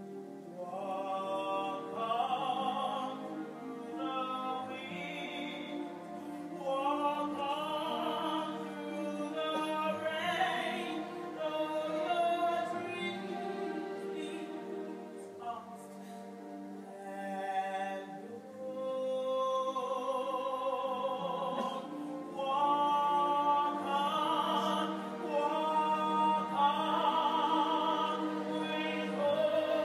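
A woman singing a slow show ballad in full operatic voice with wide vibrato, backed by a theatre orchestra's sustained strings; the singing grows louder about two-thirds of the way through.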